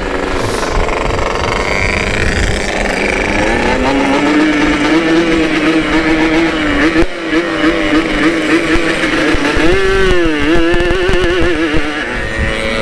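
Two-stroke motorcycle engines running at riding speed over wind and road noise. The engine note wavers up and down with the throttle and briefly dips then climbs again about ten seconds in.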